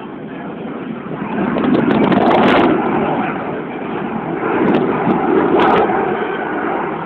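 Aircraft engine noise from a plane passing over: a loud, rushing sound with no clear pitch that swells about two seconds in and stays loud.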